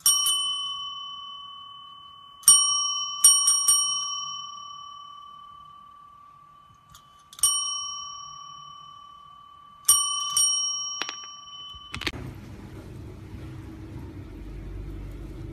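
Chrome desk service bell rung repeatedly by a cat pawing it. Each strike gives a bright ding that rings out for several seconds, mostly single dings with a quick run of three a few seconds in. Near the end the ringing gives way to a low steady hum.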